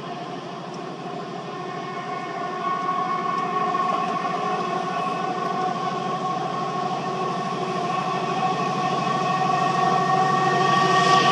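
Class 70 diesel locomotive's 16-cylinder GE PowerHaul engine running as it hauls a train of wagons, a steady whine over a low throb, growing steadily louder as it approaches.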